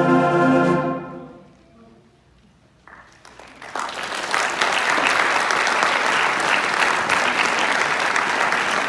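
School concert band with brass and saxophones holding its final chord, which dies away about a second in. After a short silence, audience applause builds and goes on steadily.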